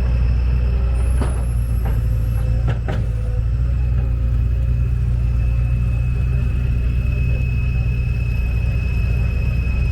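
A heavy vehicle's engine rumbling steadily, with a steady high-pitched whine over it and a couple of sharp clicks about a second and three seconds in.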